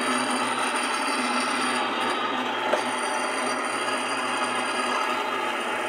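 Mueller spin dryer (centrífuga) running steadily, its motor humming and its drum spinning after a new 25 µF start capacitor was fitted; one short click comes about halfway through.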